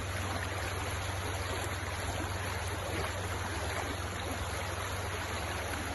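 Creek water flowing, a steady rush with no pauses.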